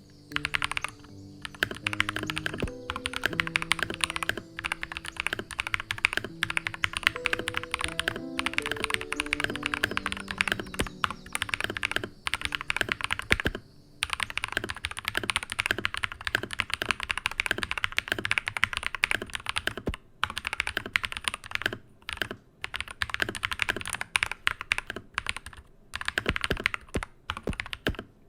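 Typing on a Keychron K2 mechanical keyboard fitted with Glorious Panda tactile switches lubed with Krytox 205g0, with clipped and lubed stock stabilisers: fast runs of keystrokes broken by short pauses. Background music with a melody plays under the first half.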